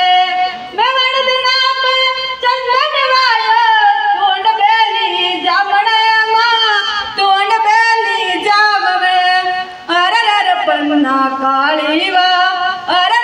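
A girl singing solo into a handheld microphone with no instrumental accompaniment. She holds long notes and slides between pitches, with a short break for breath about ten seconds in.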